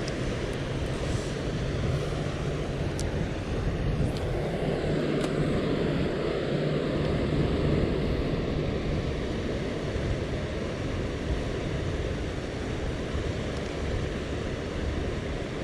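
Steady rushing of floodwater pouring through a river spillway, deep and even, swelling slightly midway, with a few faint ticks.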